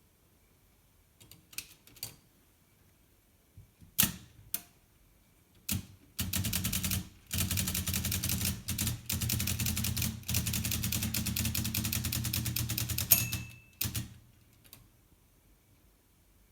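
Olivetti Lettera 32 portable typewriter being typed on: a few separate keystrokes and clacks, then a fast, steady run of key strikes with brief pauses. Near the end a short bell ding sounds, followed by a couple of final clacks.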